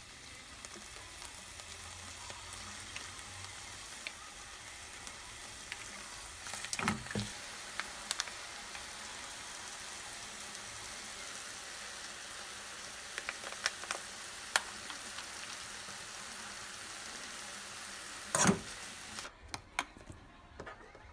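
Squid pieces sizzling steadily in a frying pan, with a few sharp knocks and clinks here and there. The sizzling stops shortly before the end.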